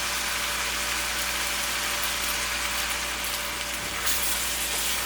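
Chicken thigh pieces sizzling in oil and soy sauce in a wok on high heat: a steady frying hiss, with a faint low hum underneath.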